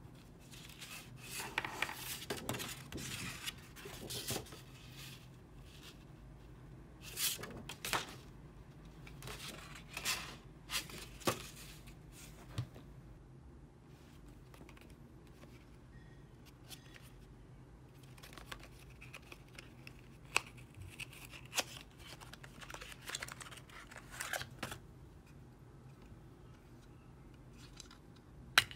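Paper, card and packaging rustling and crinkling as art supplies are unpacked and handled, with scattered clicks and knocks of items being picked up and set down; a sharp click near the end is the loudest sound.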